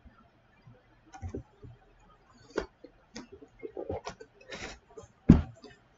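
Computer mouse clicks and small knocks at the desk: a scattered handful of short, sharp clicks, the loudest about five seconds in.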